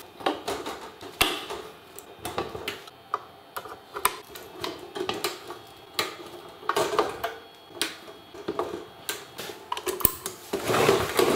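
Cable plugs being handled and pushed into an Antminer L3+ crypto-mining rig: irregular clicks and knocks as the ribbon-cable and power-cable connectors are seated in the hashboards. There is a louder stretch of noise near the end.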